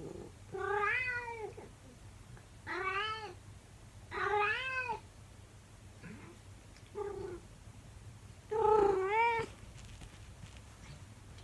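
A 24-year-old calico cat meowing: five drawn-out meows with short pauses between, each rising then falling in pitch. The fourth is brief and the last is the loudest.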